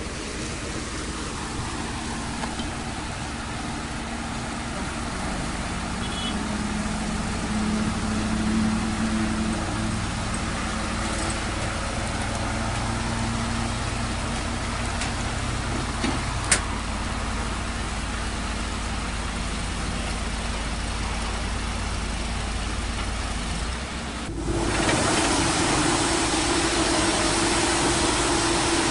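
Komatsu PC200-8 excavator's diesel engine running under hydraulic load, its note rising and settling for several seconds, with one sharp knock just past halfway. Near the end the engine sound changes suddenly to a steadier, higher hum.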